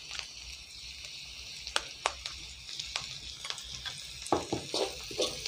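Sliced onions and carrots sizzling in oil in an aluminium wok as they are sautéed to soften. A few light metal clicks, then a quick run of stirring strokes from a slotted metal spoon near the end.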